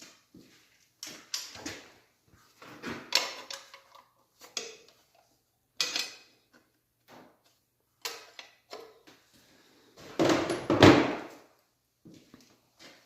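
Intermittent metallic clatter and knocks of hand tools and engine parts being handled during an engine teardown, with the loudest, longest rattle about ten seconds in.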